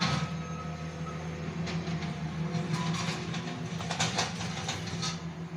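2015 Honda Accord's engine idling with a steady low hum, with a few faint clicks over it.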